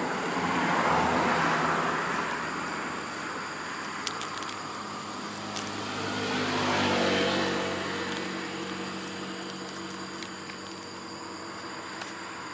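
A motor vehicle passing by: a swell of road noise about a second in, then a louder pass around seven seconds in whose engine note falls in pitch as it goes by.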